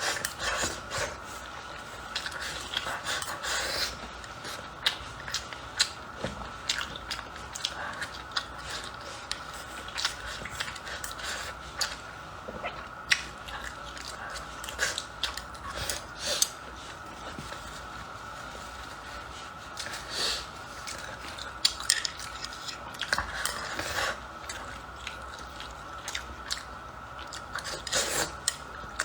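Close-miked eating: wet chewing and biting, dotted with irregular sharp mouth clicks and occasional crunches, of someone eating braised pork belly with rice.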